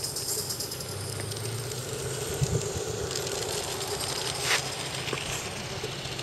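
Small model steam locomotive running on ground-level track, with steam hissing and rapid chuffing from its exhaust and the rumble of its wheels on the rails. A sharp click comes about four and a half seconds in.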